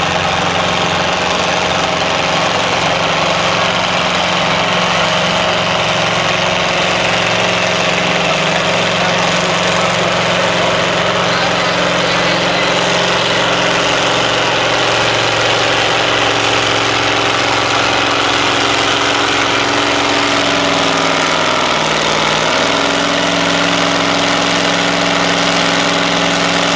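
International Harvester 1468's naturally aspirated V8 diesel running hard under load, pulling a weight-transfer sled. Its pitch sags for a couple of seconds near the end, then picks back up.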